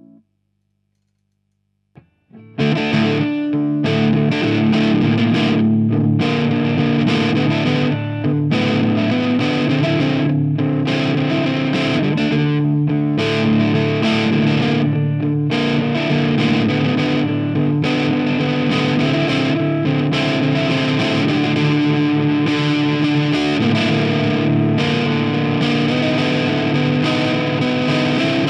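Stanford Fleetwood CR electric guitar played with heavy distortion. After about two seconds of silence and a small click, loud distorted chords and riffs start and carry on, broken by short gaps every two or three seconds.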